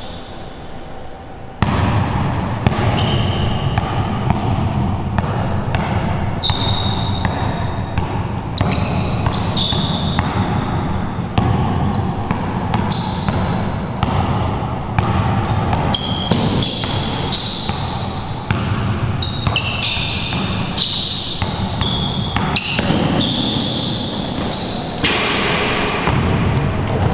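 Basketball dribbled on a hard indoor court, repeated sharp bounces, with short high sneaker squeaks as the players cut and shuffle. A steady low hum sets in suddenly about one and a half seconds in and runs under it.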